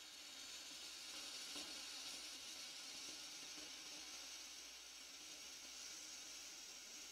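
Hot air gun blowing steadily, a faint even hiss.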